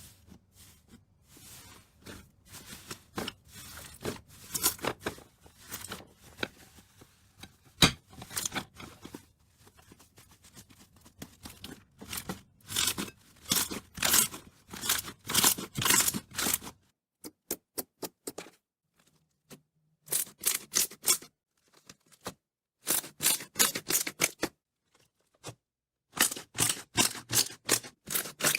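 Slime being squeezed, pressed and pulled by hand, giving runs of sharp crackling clicks and pops in bursts, broken by a few brief pauses.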